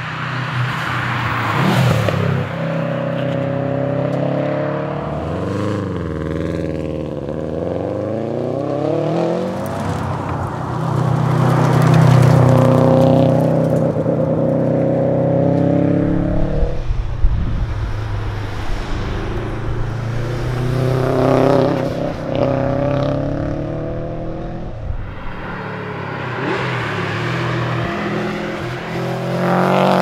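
Subaru Liberty RS Turbo's turbocharged flat-four engine driven hard past the roadside. Its pitch climbs and drops again and again through acceleration and gear changes as the car comes by on several passes.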